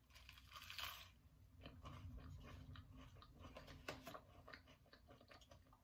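Biting into avocado toast with a brief crunch, then faint chewing with many small, irregular clicks.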